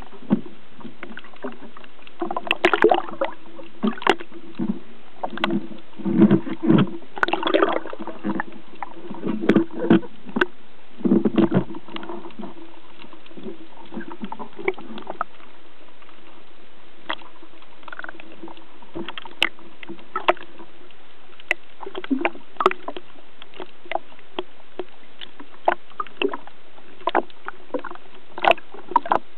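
Underwater handling noise from a camera mounted on a speargun: irregular muffled clicks and knocks, thickest in the first dozen seconds and sparser after, over a steady hiss and a faint low hum.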